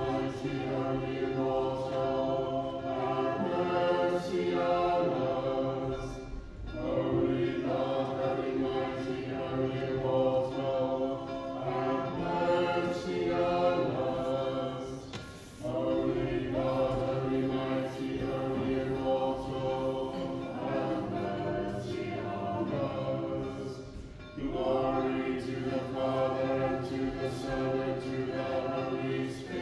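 Church choir singing unaccompanied Orthodox liturgical chant, in long phrases with brief breaks about every nine seconds.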